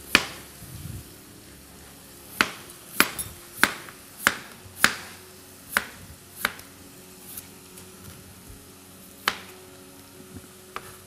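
A kitchen knife slicing raw potatoes into rounds, the blade knocking on the cutting board with each cut. There are about ten sharp knocks at uneven intervals, coming quickest, a little over half a second apart, between about two and five seconds in.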